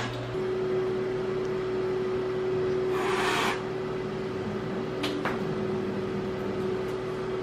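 Room fan running with a steady hum. A short hiss comes about three seconds in, and a couple of light clicks about five seconds in.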